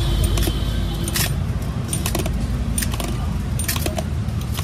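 Flat metal hand grater rasping and clinking against a steel bowl as a block of paneer is rubbed over it, giving irregular sharp metallic clicks about every half second. A steady low traffic rumble runs underneath.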